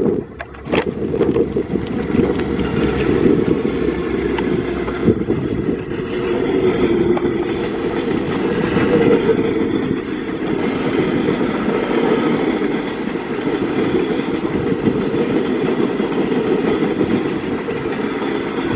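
Alaska Railroad Coastal Classic passenger train rolling past: a steady rumble of wheels on rails, with a few sharp clicks.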